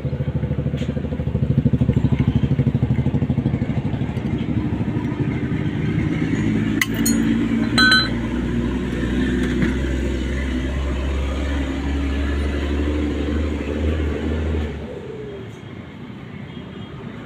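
Motorcycle engine running with a fast, even beat, loudest a second or two in, then settling to a steady hum that drops away near the end. A few sharp metallic clicks come about seven and eight seconds in.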